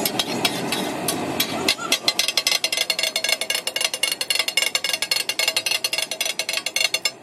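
Two steel spatulas chopping and striking a large flat tawa griddle as maghaz (brain) masala is minced in oil: metallic clacks, sparse at first, then quickening about two seconds in to a rapid, ringing clatter several strikes a second.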